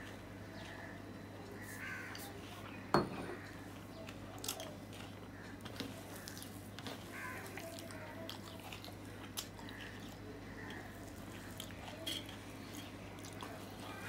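Close-up eating sounds: fingers mixing and squeezing rice with mashed potato on a steel plate, with soft chewing and small clicks, over a steady low hum. A single sharp knock about three seconds in.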